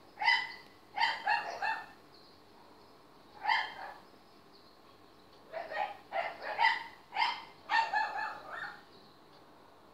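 Dog barking in short, high-pitched yaps. They come singly and in quick runs of two or three, with the densest run in the second half.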